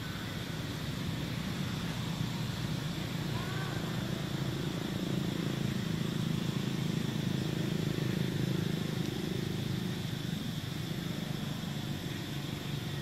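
A steady low rumble that grows louder through the middle and eases near the end, over a faint steady high hiss, with two brief faint chirps.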